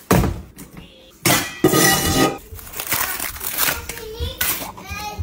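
Kitchen handling noise, sudden clattering and rustling at the start and again about a second in, with a child's voice in the background near the end.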